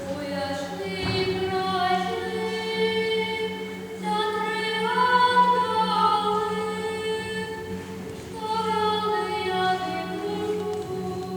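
Choir singing in long held phrases, swelling three times and easing off between, with a steady low hum underneath.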